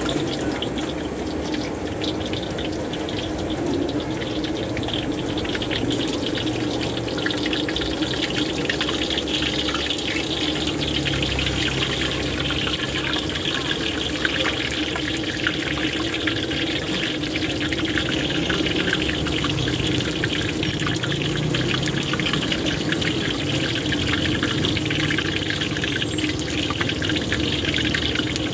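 Tofu pieces deep-frying in a pot of hot oil in a wire basket, a steady sizzle full of fine crackling.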